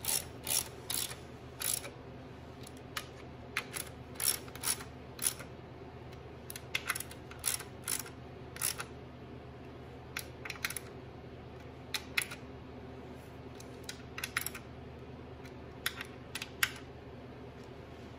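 Small hand ratchet clicking in short runs of a few clicks each, with pauses, as the screws holding a new filter to an automatic transmission's valve body are run down. A faint steady hum lies underneath.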